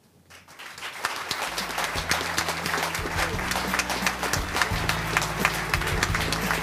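Audience applauding. The clapping builds up over the first second, and low music comes in underneath about a second and a half in.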